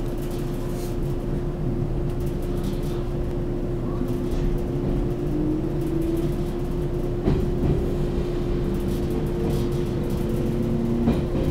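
Cabin noise of a JNR-type electric local train running along: a steady low rumble with a constant hum, faint whines that rise in pitch, and two sharp knocks, one near the middle and one near the end. The train is taken by the uploader to be a 413 series EMU.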